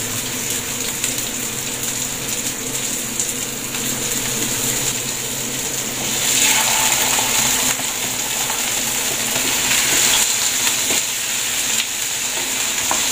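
Garlic and onions sizzling in hot olive oil in a frying pan. About six seconds in, cut squash and vegetables are tipped in and the sizzle swells, then they are stirred with a wooden spoon.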